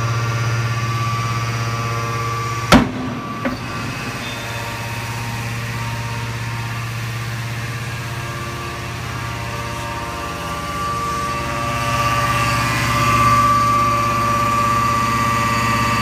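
Hydraulic power unit of an Enerpat scrap metal baler running with a steady hum and whine. A single sharp metal clank comes about three seconds in, with a smaller knock just after it. The whine grows louder near the end.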